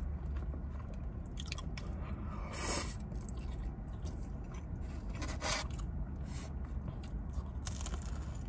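A person chewing a mouthful of noodles and pork close to the microphone: wet mouth and chewing sounds, with a few louder bites.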